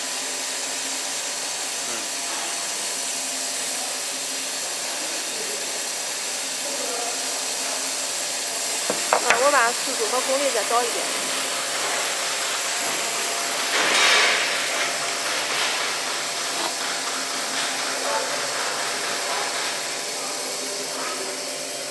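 Steady whirring hiss of a laser cutting machine's fans and air supply running. A short louder rush comes about fourteen seconds in.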